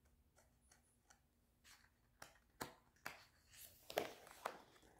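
Faint rustling and soft clicks of a picture book's paper page being lifted and turned, loudest from about two and a half to four and a half seconds in.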